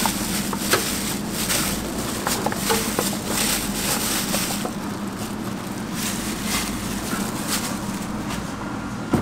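A hand in a plastic bag tossing squid pieces through frying flour in a metal bowl: crinkling plastic with irregular soft knocks and rustles. A steady low hum runs underneath.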